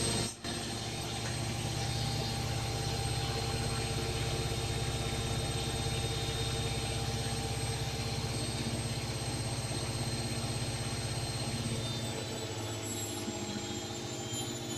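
Atlant front-loading washing machine on its spin cycle, the drum spinning fast with a steady motor hum and whine. Near the end the whine drops slightly in pitch and the hum eases, as the spin slows.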